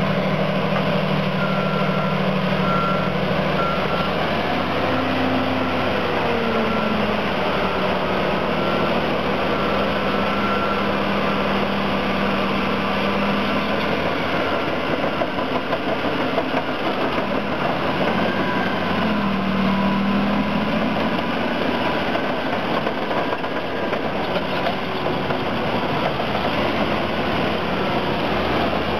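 Caterpillar D10 bulldozer's diesel engine working under load as it pushes dirt, its pitch rising and falling a couple of times. A reversing alarm beeps steadily through roughly the first ten seconds.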